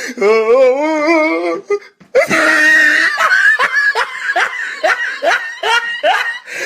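Laughter played as meme sound effects: a wavering, warbling laugh for about two seconds, then after a brief gap a loud burst of laughter that runs on in short rhythmic 'ha's, about three a second.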